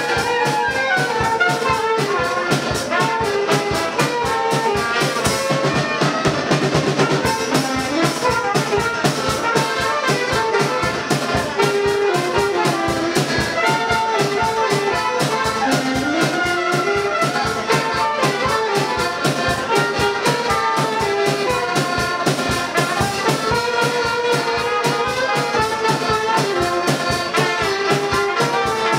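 Live folk dance band music: two accordions and a saxophone playing a lively tune over a drum kit keeping a steady beat.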